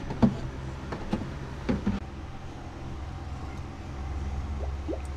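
A steady low mechanical hum, with scattered light clicks and a few short glugs as gear oil is poured from a plastic bottle through a funnel into the engine's gearbox.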